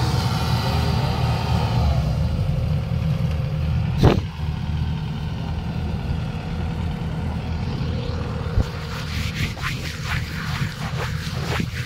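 Kubota DC-95GM combine harvester's diesel engine running steadily as the machine cuts rice, a continuous low drone. A single sharp knock about four seconds in, and a few lighter clicks near the end.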